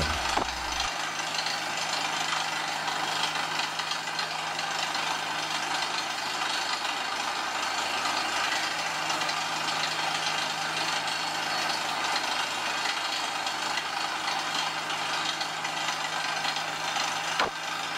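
Air drill rig running steadily while its air hammer drills through limestone: a constant engine drone under a wide hiss of high-pressure air blowing the cuttings out of the hole.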